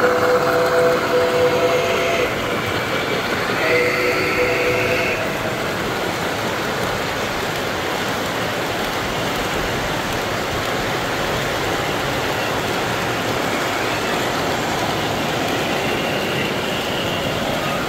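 Chime whistle of an O-gauge three-rail model steam locomotive's sound system: a blast that ends about two seconds in, then a second, shorter blast about four seconds in. After that, the steady rolling noise of model trains running on the track.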